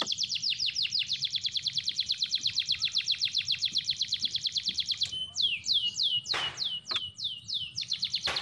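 A bird calling in a rapid, even series of high descending chirps, about ten a second. Partway through it slows into fewer, longer notes that drop lower, then returns to the fast chirping near the end.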